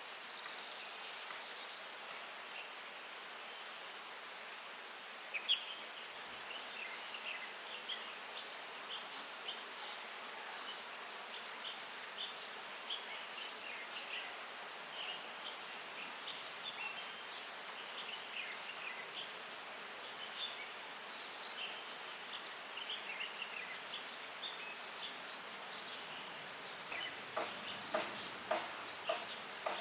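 Insects chirping: a steady high-pitched trill and a second one pulsing on and off, with scattered short chirps over them. A quick run of sharp ticks comes near the end.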